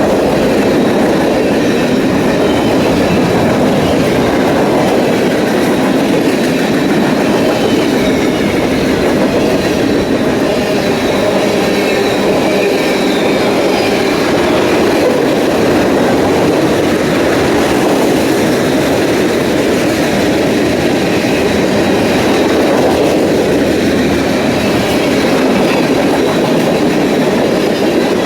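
Freight train cars rolling past at steady speed: a continuous loud rumble of wheels on rail with clickety-clack, and a faint steady high-pitched ring over it.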